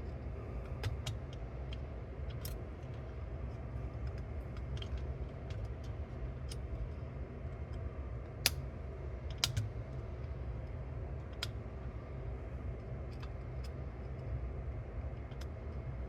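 Scattered small clicks and taps of tools on metal parts as a snap ring is worked off a cassette deck's tape transport, two louder clicks in the middle, over a steady low hum.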